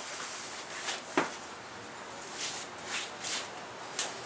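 Handling noises from work on the motorcycle: scattered soft rustles and light knocks, with a sharp click about a second in and a brief high tick near the end.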